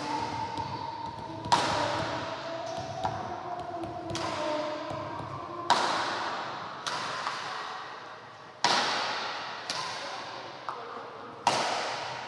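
Badminton racket strings striking a shuttlecock: about four sharp cracks a few seconds apart, each ringing on in the echo of a large hall, with quieter knocks in between.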